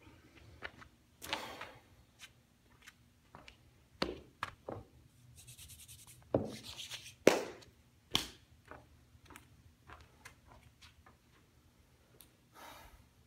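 Scattered light taps and knocks mixed with short rustling noises in a small room, the sharpest knock a little past the middle.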